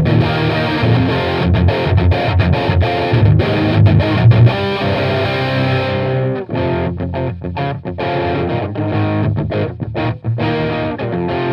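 Electric guitar with a Seymour Duncan Invader bridge humbucker, played through a Bugera 333 valve amp with EL34 valves: a heavily distorted, saturated riff of chords cut by frequent short stops. About six seconds in the bright top end drops away and the riff goes on.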